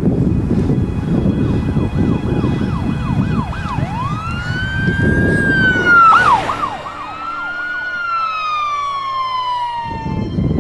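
Police car siren sounding: fast yelps, then a long wail, a brief burst of fast yelps, and a slow falling tone near the end. Wind rumble on the microphone under the first part, with a short rush of noise about six seconds in.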